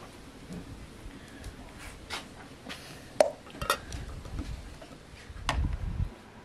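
Glass preserving jars clinking against one another and against the aluminium pot they stand in as they are handled: a few sharp clinks, the loudest about three seconds in.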